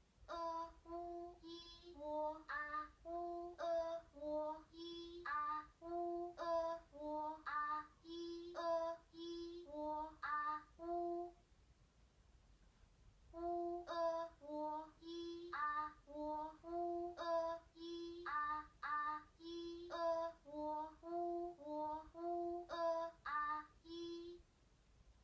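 Short Chinese Pinyin vowel sounds (a, i, o, e, u) in a high voice, played in quick succession from loudspeakers at about two a second. They are the auditory stimuli of a P300 brain-computer interface speller. The run pauses for about two seconds midway, then resumes.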